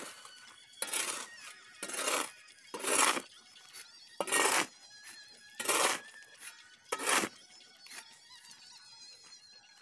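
A steel shovel scraping and scooping through a dry mix of cement and gravel on a concrete roof slab. There are about six gritty strokes a second or so apart, and they stop about three-quarters of the way through.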